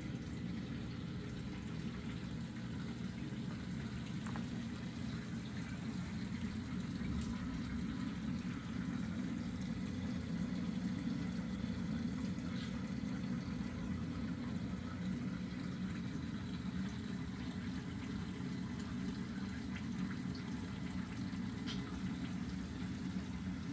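Steady low rush of circulating water in a reef aquarium, with a few faint ticks scattered through.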